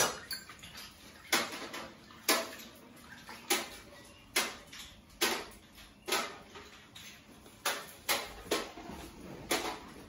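A hand swishing lukewarm water in a glass mixing bowl, about one splash a second, mixing salt and sugar into the water for pizza dough.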